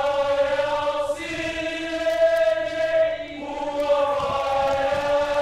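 A Samoan cultural group singing together in a choir, holding long sustained notes that change pitch about a second in and again after three seconds.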